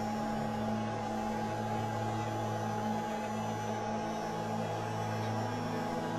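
A steady low hum with a faint higher tone above it, unchanging throughout.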